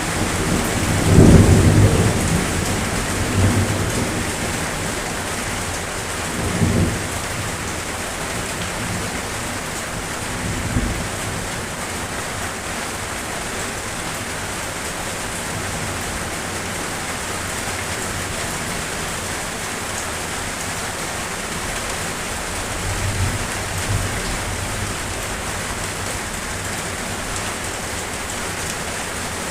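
Steady rain falling, with low rolls of thunder over it. The strongest rumble comes about a second in, and weaker ones follow at intervals: three within the next ten seconds and two more close together past the twenty-second mark.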